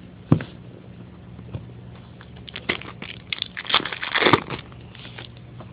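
Crinkling and rustling of a foil trading-card pack wrapper and the cards inside being handled, in short bursts that are loudest about four seconds in, after a sharp click near the start. A steady low hum runs underneath.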